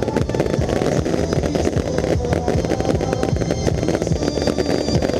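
Fireworks going off in a dense barrage: rapid, continuous cracks and bangs with no gaps, while music plays along with the show.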